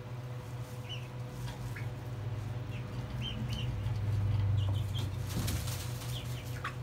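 Young chickens perched on a roost giving short, high scattered peeps, about eight in all, over a steady low hum. There is a brief rustle about five seconds in.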